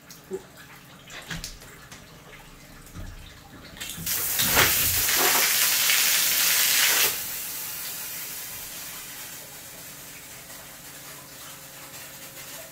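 Water gushing out of a frozen hot-water pipe as a steam hose thaws the ice plug: about four seconds in it starts with a loud rush for about three seconds, then drops suddenly to a weaker steady hiss that slowly fades.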